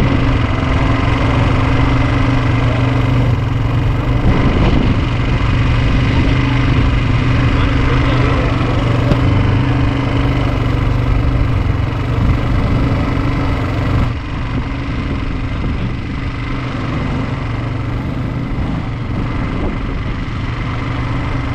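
ATV engine running steadily at low throttle, heard close up. It drops a little in level about two-thirds of the way through.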